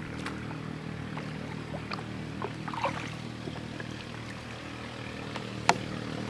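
A motor running steadily, with scattered small clicks and taps over it and one sharp click near the end.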